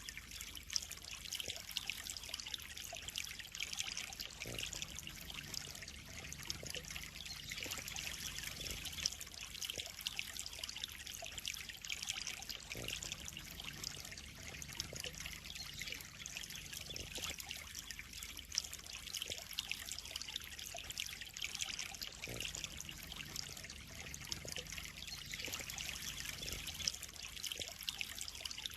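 Water trickling and splashing steadily into a koi pond: a continuous bright, fizzy babble without pauses.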